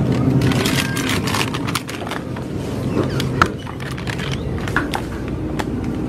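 A plastic frozen-food bag crinkling as it is handled and pulled off a freezer shelf, with scattered clicks over a steady low hum.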